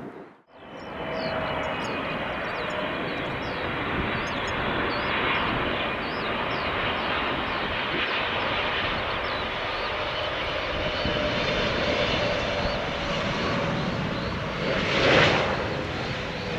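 Boeing 777-300 jet engines running with a steady rush. The sound returns after a brief gap at the start and swells louder for a moment near the end.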